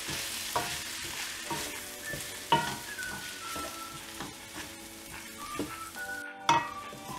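Vegetables and sambar powder sizzling in oil in a kadai while a wooden spatula stirs them, scraping and knocking against the pan now and then, with the sharpest knocks about two and a half and six and a half seconds in. This is the stage where the spice powders are fried in the oil with the vegetables.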